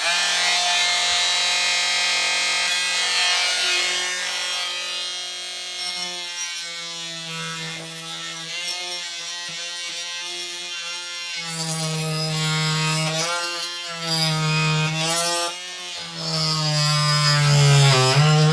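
Porter-Cable oscillating multi-tool with a fine-tooth wood blade, cutting into a wooden baseboard joint to trim it flush. It starts abruptly and runs as a steady buzz, its pitch wavering and dipping as the blade bites into the wood, most of all in the last few seconds.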